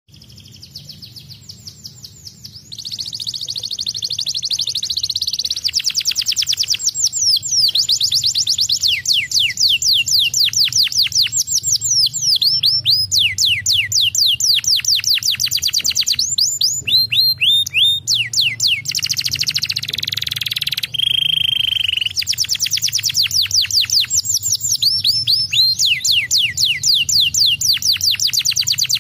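Canary singing a long, fast song: runs of rapid falling whistled notes repeated many times a second, broken by a few held buzzy rolls. The song is quieter for the first few seconds, then loud.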